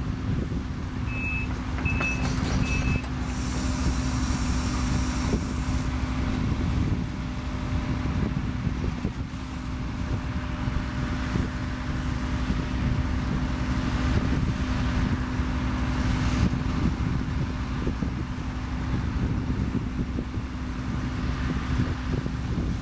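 Case CX130D long-reach excavator's diesel engine running steadily with a constant hum while the machine digs. A warning alarm gives three short, high beeps about a second in.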